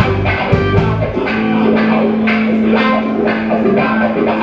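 Live rock band playing, with electric guitars and keyboard over regular drum hits. A low note is held steadily from about a second in.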